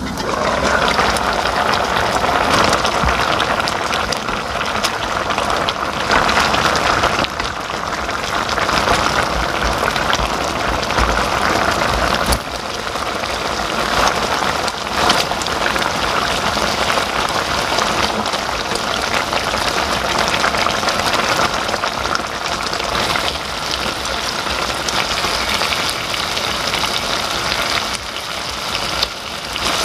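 Thick spicy red braising sauce with pork backbone bubbling hard in a wide pan, a dense steady popping and spattering.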